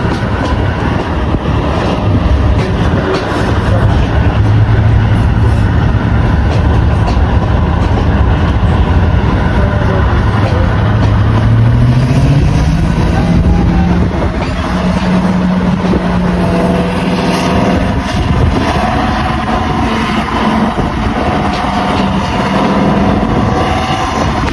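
Diesel locomotive engine running loud and steady. About eleven seconds in its pitch climbs over a few seconds as it revs up, then holds at the higher speed.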